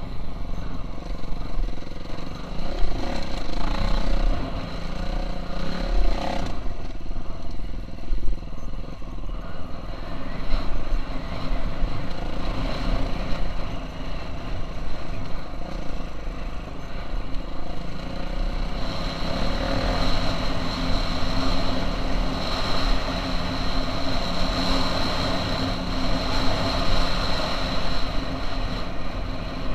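KTM 350 SX-F four-stroke single-cylinder motocross engine running under a rider, its pitch rising and falling with the throttle in the first part and steadier later on.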